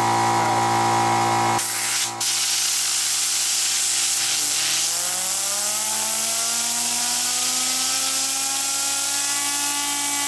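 Compressed air hissing from a blow gun aimed at a brass fidget spinner, starting about a second and a half in with a brief break, while the spinner's bearing whines higher and higher as it spins up. An air compressor's motor runs with a steady hum underneath.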